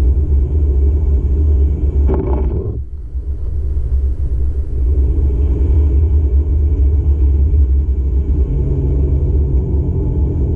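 Steady low rumble of a car driving, heard from inside the cabin, briefly dipping just before three seconds in.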